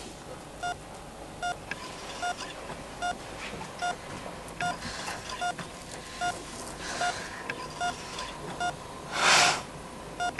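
Hospital bedside patient monitor beeping steadily with each heartbeat, a short single-pitched beep about every 0.8 seconds. A brief breathy rush about nine seconds in is louder than the beeps, with fainter ones about five and seven seconds in.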